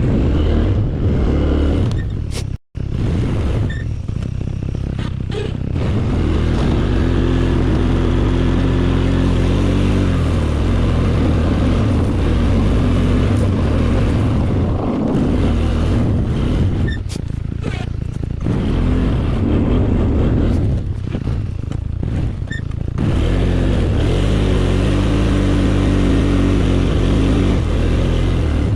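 ATV engine running and revving up and down repeatedly, as when pushing a snow plow. The sound cuts out for an instant about three seconds in.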